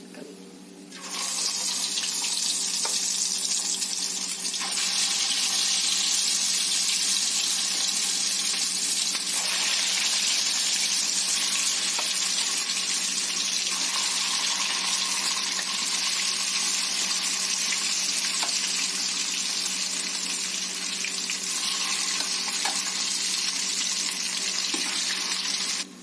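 Marinated fish pieces deep-frying in a kadai of hot oil: loud, steady sizzling that starts about a second in as the batch goes into the oil.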